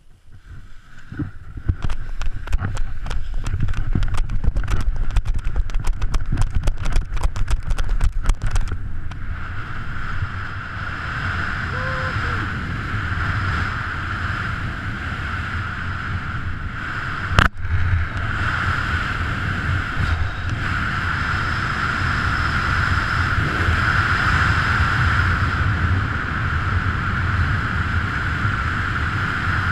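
Feet crunching and scuffing on snow during a speed-flying launch run for about the first eight seconds. Then steady wind rushes over the camera in flight under the speed wing, with one sharp knock about halfway through.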